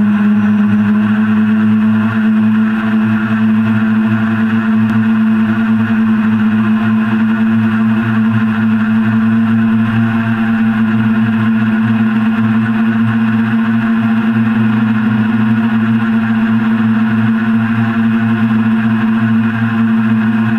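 A hexacopter's six electric motors and propellers humming steadily in flight, heard from on board, holding one pitch throughout.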